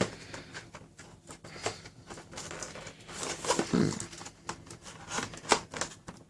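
Handling of the Nerf blaster's packaging: irregular rustling and crinkling of plastic and cardboard with scattered small clicks as the blaster is worked loose from its box.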